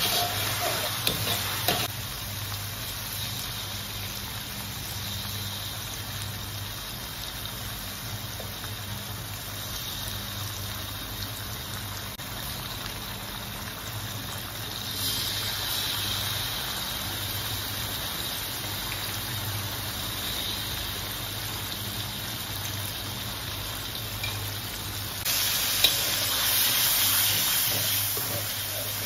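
Chopped aromatics sizzling in hot oil in a wok while a metal spatula stirs and scrapes them. The sizzle grows louder about halfway through, as chilli sauce goes into the oil, and again near the end, with a sharp click from the spatula against the wok. A low hum runs underneath.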